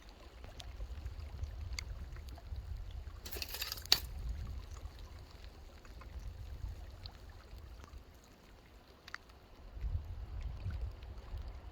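Wind rumbling on the microphone, with faint water sounds and scattered light ticks. About three seconds in comes a short hiss that ends in a sharp tick.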